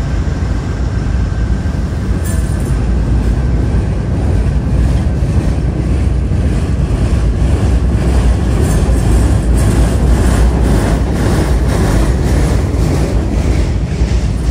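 Freight cars rolling across a steel railroad bridge: a heavy, steady low rumble of wheels on rail, with regular clacking of wheels over rail joints setting in about two seconds in.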